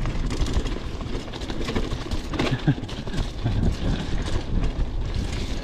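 Huffy Good Vibrations klunker bicycle being ridden over a rough dirt trail: a steady low rumble from the tyres with many small rattles and clatters from the bike.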